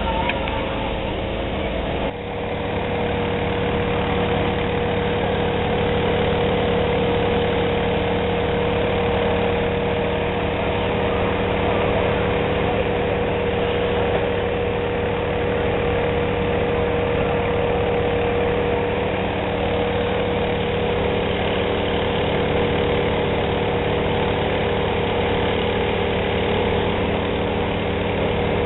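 Fire engine's engine running at a steady speed, a continuous drone with a fixed pitch, driving the pump that feeds the hoses. The sound shifts abruptly about two seconds in, then holds steady.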